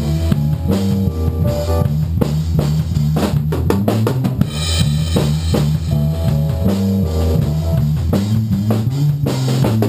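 Live band rehearsing a funky jazz groove: electric bass guitar playing a busy bass line, a keyboard playing chords and a drum kit keeping a steady beat.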